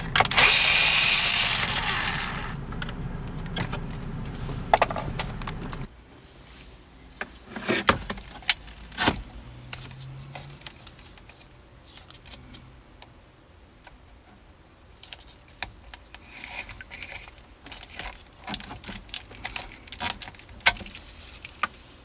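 Electric screwdriver running for about two and a half seconds as it backs out the screws holding the dash touch screen, then fading out by about six seconds in. After that come scattered clicks and plastic rattles as a wiring connector is unlatched and pulled from the back of the screen.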